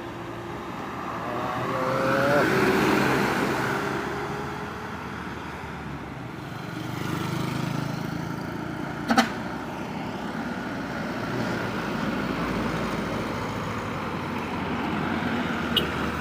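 Road traffic: large vehicles passing by one after another, the sound swelling as each goes past, the first about two seconds in with a short engine pitch that bends as it passes. A single sharp bang about nine seconds in is the loudest sound.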